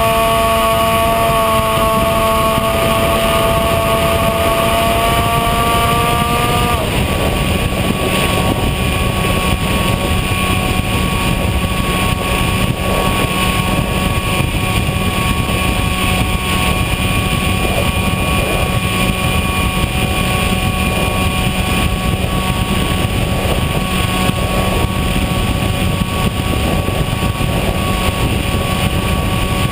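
Onboard sound of a Bixler RC foam plane's electric brushless pusher motor and propeller running at a steady whine, with rushing air noise. About seven seconds in, the pitch of the whine changes abruptly.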